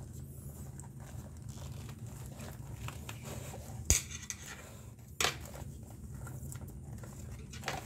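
Leather lace being threaded and pulled through the web holes of a baseball glove: soft rustling and handling, with two sharp clicks about four and five seconds in, the first the louder.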